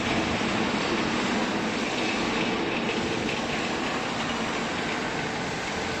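Steady mechanical rumble and hiss of machinery running, with no distinct strokes or impacts.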